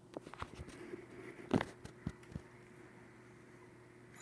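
A few irregular light clicks and knocks, the loudest about a second and a half in, over a faint steady hum.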